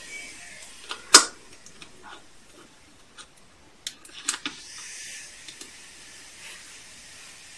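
A new tube of bicarbonate of soda being opened by hand: one sharp snap of the lid about a second in, then a few lighter clicks and a brief soft hiss of handling around four to five seconds.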